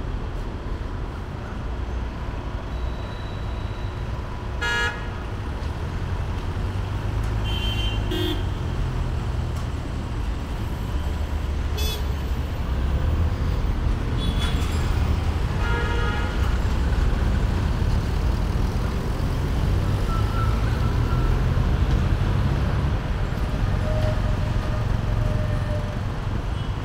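Street traffic: a steady low rumble of engines and tyres, with vehicle horns honking briefly about five times.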